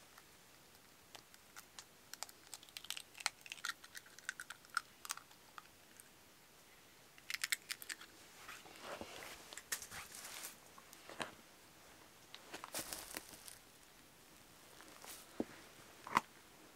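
Chicken eggs cracked one after another over a split green bamboo tube, their shells crackling and snapping as they are broken open: small sharp clicks in several clusters, with one sharper crack near the end.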